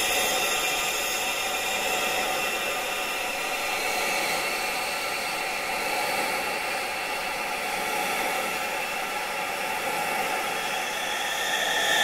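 Wind-like rushing hiss, mostly high with little bass, that swells and eases slowly, with faint steady high tones running through it. It grows brighter near the end.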